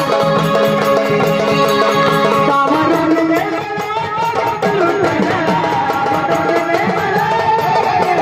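Gondhal folk music: sambal drums beating under held organ chords, with a wavering melody taking over about three seconds in.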